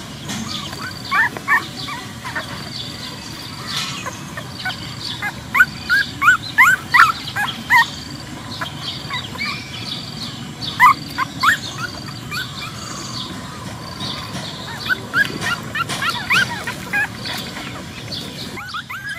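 Newborn puppies squeaking and whimpering while nursing: short high-pitched squeaks that come in several clusters, with quieter stretches between.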